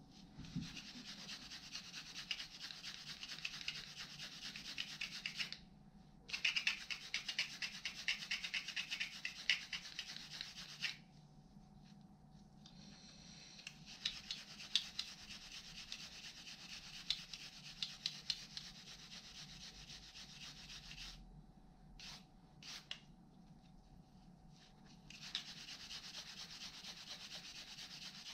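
Rust being rubbed off a small steel tool part by hand: fast, scratchy rubbing strokes in four bouts with short pauses between them.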